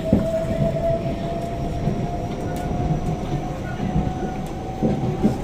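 Interior running noise of a Kawasaki-CRRC Sifang C151A metro car: a heavy rumble from the bogie with irregular knocks and thumps, the odd noises the rider takes for a bogie fault. A steady whine slowly rises in pitch underneath.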